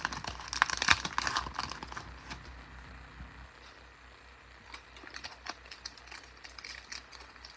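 Bowman baseball card pack wrapper crinkling as it is torn open and the cards are pulled out. The crackling is densest in the first couple of seconds, then thins to a few light ticks as the cards are handled.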